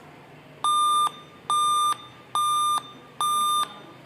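Dell laptop beeping a steady repeating error alarm, a high electronic tone about half a second long, roughly once a second, four times and starting a fifth at the end. It sounds while its pre-boot diagnostics report the hard drive as not installed.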